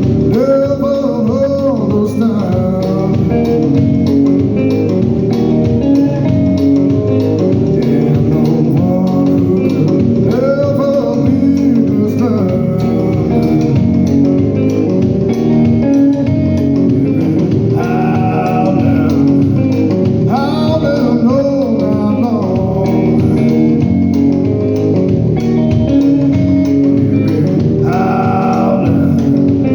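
Live blues band playing: guitar with bent notes over bass and drums, at a steady level throughout.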